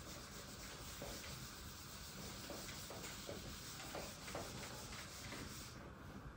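Faint swishing of a handheld eraser being rubbed across a whiteboard in a few short strokes.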